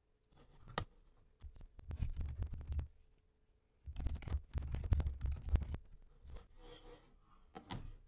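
Computer keyboard typing in two quick runs of keystrokes, with a single click before them and another near the end.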